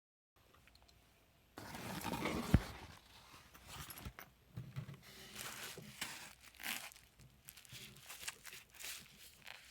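Packaging being torn open and crinkled by hand: irregular tearing and rustling bursts, loudest a little after the start, with a sharp knock about two and a half seconds in.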